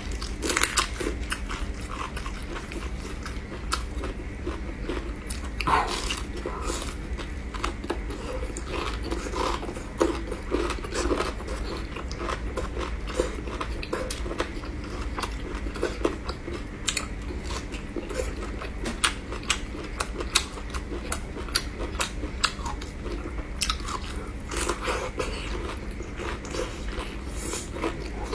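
Close-up biting and chewing of food, with many short, crisp clicks scattered throughout. A steady low hum sits underneath.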